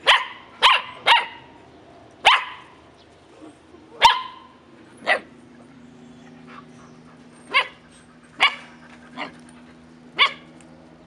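Puppies barking: about ten short, high-pitched barks at uneven intervals.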